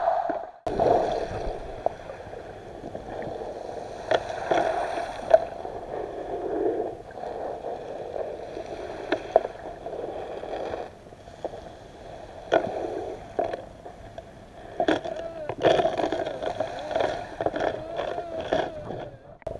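Muffled underwater sound picked up through a camera housing: a steady hum with irregular sharp clicks and knocks scattered through it.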